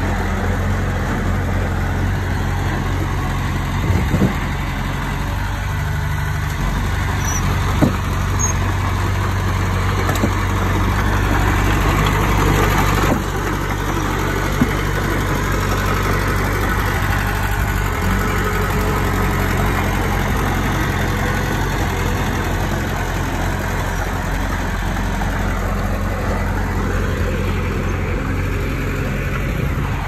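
Heavy diesel engine of earthmoving machinery running steadily, its note shifting a few times, with a few sharp knocks, the loudest about eight seconds in.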